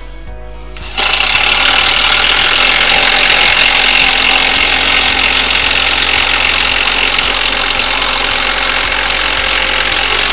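A loud machine running steadily, starting abruptly about a second in and cutting off sharply at the end.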